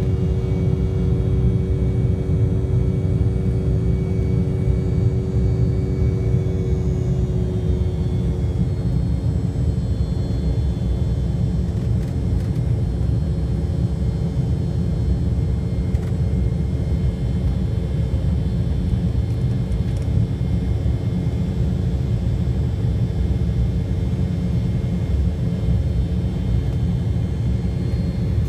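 Cabin noise inside an Embraer 170 airliner in flight: a steady, loud rumble of its turbofan engines and the airflow, with a hum whose pitch shifts slightly about seven seconds in.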